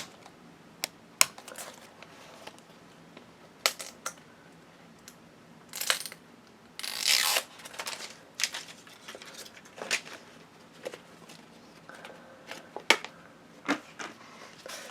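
Small plastic toy packaging handled and unwrapped by hand: scattered sharp clicks and taps of plastic pieces, with a short crinkle about six seconds in and a longer one about a second later as wrapping is pulled open.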